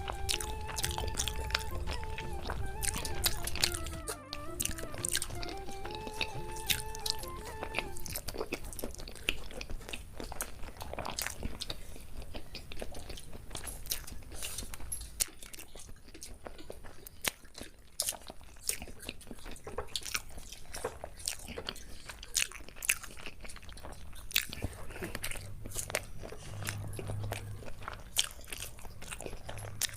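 Close-up chewing and biting while eating chicken biryani, with many sharp crunchy clicks and mouth noises throughout. A background music melody plays for the first eight seconds or so, then stops.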